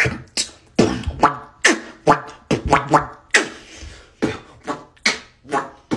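Beatboxing: mouth-made percussion and sound effects, a string of sharp hits about two a second, many carrying a short pitched vocal tone.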